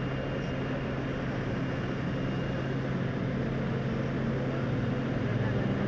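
Light aircraft engine droning steadily in flight, with a constant low hum over airflow noise, heard from inside the cabin.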